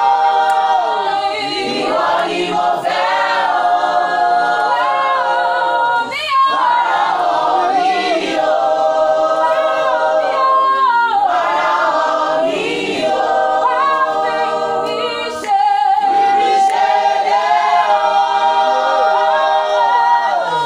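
A cappella choir singing, several voices in harmony without instruments, with short breaks between phrases.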